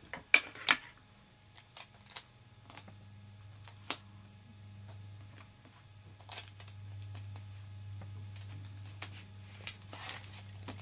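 A comic book being handled in its plastic bag and backing board: scattered sharp clicks and crinkles of plastic and card. A low steady hum runs underneath, louder in the second half.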